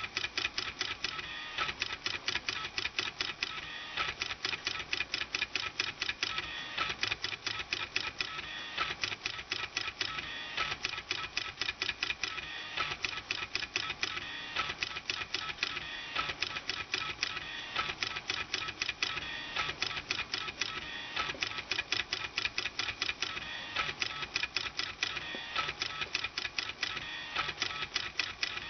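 Stepper motors in the CD-drive laser sleds of a homemade pen plotter stepping as it draws: a rapid, steady ticking with a buzzing, pitched tone.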